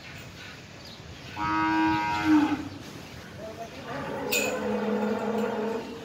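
Black-and-white dairy cattle mooing twice: a higher moo about a second and a half in that drops at its end, then a lower, longer moo from about three and a half seconds to near the end. A short sharp click sounds about four seconds in.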